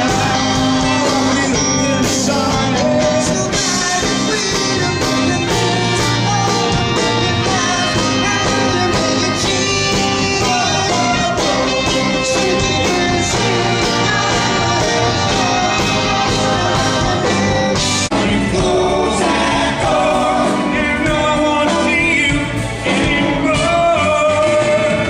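Live rock band playing a song with a lead singer, drums keeping a steady beat.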